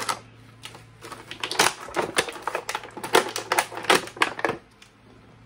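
Plastic packaging and wire twist ties being handled as the ties are untwisted from an action figure: a quick, irregular run of sharp clicks and crackles that dies away about a second before the end.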